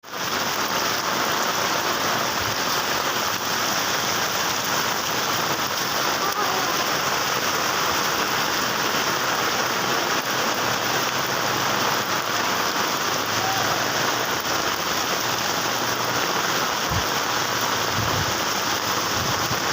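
Heavy rain falling steadily, an even hiss of rain on surfaces that does not let up.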